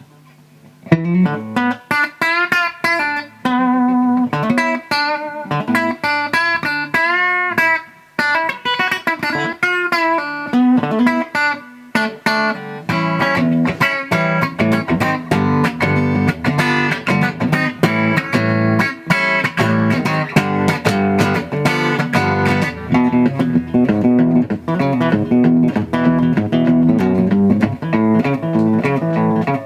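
Electric guitar, a Fender Telecaster through a DOD FX80-B compressor sustainer and a Fender Super 210 tube amp with reverb, played clean. It starts with single-note lead lines with bends and vibrato, then from about twelve seconds in switches to steady rhythmic chords.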